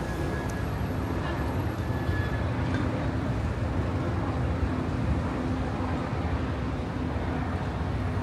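Steady low rumble of engines with a constant hum running through it and no clear rise or fall.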